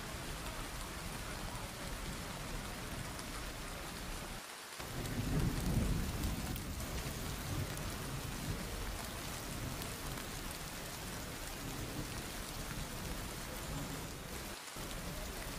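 Heavy rain falling steadily, with a low rumble of thunder swelling for a couple of seconds about five seconds in. The sound drops out briefly twice.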